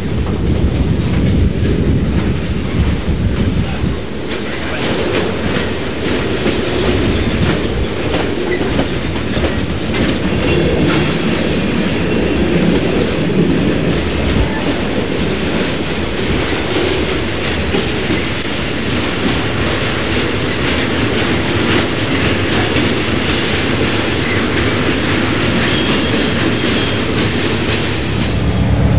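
HO scale model freight train rolling past, its cars' wheels clicking steadily over the rail joints with a continuous rumble.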